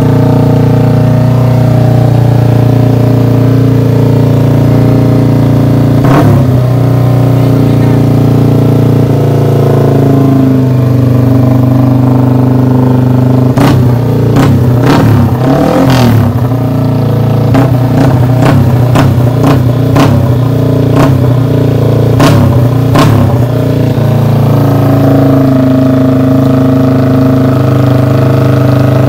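Modified Yamaha R15 V3's single-cylinder engine running through an aftermarket 'big-bike sound' exhaust, holding a steady note. A run of sharp cracks comes between about 14 and 23 seconds in, with one more near 6 seconds.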